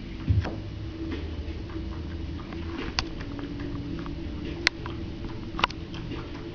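A kitten's paws and claws scrabbling on a hardwood floor and vinyl mat as it plays, heard as a handful of sharp ticks and taps over a steady low room hum.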